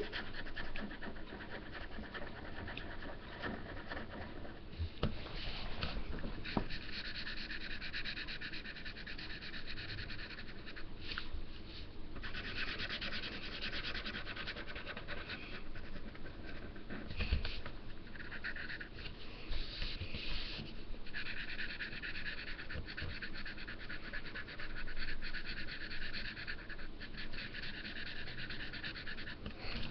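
Yellow felt-tip marker scratching on paper as an outline is coloured in. The scratching comes in stretches of a few seconds with short pauses between strokes.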